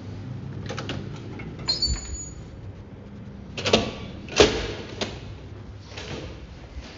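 A door opening with a brief high squeak, then a few heavy thuds of footsteps into a stairwell, the loudest about four and a half seconds in.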